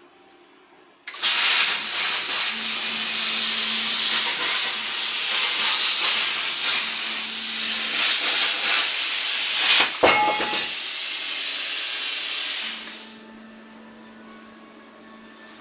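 Shyuan CUT40 air plasma cutter's torch cutting 1.5 mm steel at 34 A: a loud steady hiss starts about a second in, a sharp crack comes about ten seconds in, and near the end the hiss falls away to a faint one.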